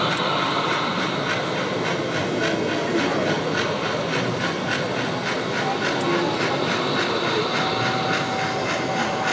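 HO-scale model geared steam locomotive running along the track with fast, even chuffing and steam hiss.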